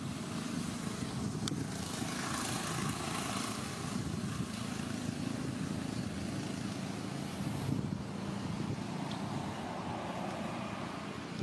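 Steady low rumble of a motor running at a distance, with a faint steady hum in it and a small tick about a second and a half in.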